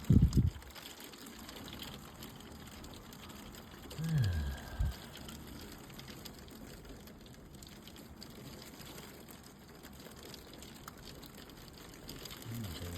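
Heavy rain falling steadily, a constant even hiss. A loud low thump comes right at the start, and a short low sound with falling pitch about four seconds in.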